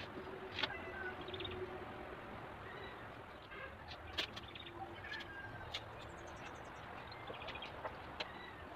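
Birds chirping and calling in short scattered notes, with a quick descending run of high notes about six seconds in, over a low steady background; a few sharp clicks and small knocks of handling come in between.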